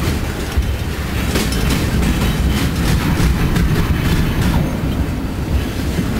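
Freight train of loaded flatcars rolling past close by: a steady heavy rumble of wheels on rail, with a sharp click now and then as wheels cross rail joints.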